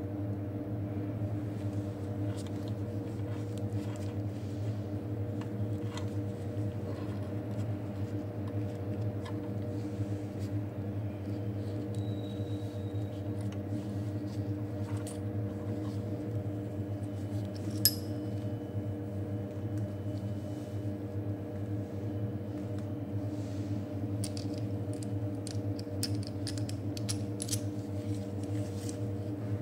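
Small metallic clicks and clinks of a bicycle disc brake caliper, its bolts and washers being handled and fitted, with one sharp click about eighteen seconds in and a run of clicks near the end, over a steady low hum.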